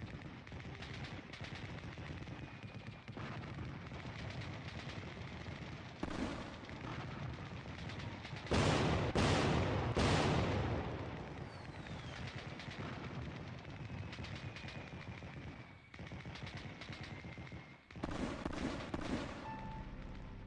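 Sustained automatic gunfire: a continuous rapid crackle of shots, with louder bursts about six seconds in, around nine to ten seconds, and again near the end.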